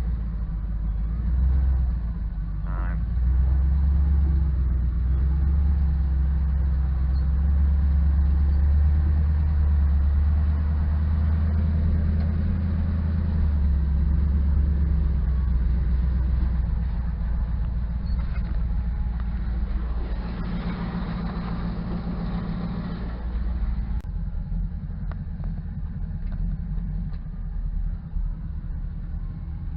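A 5.3-litre LS V8 swapped into a 1972 Chevy C20 pickup, running as the truck is driven: a steady low engine drone mixed with road noise. It grows louder for several seconds in the first half, swells briefly about twenty seconds in, and drops a little near the end.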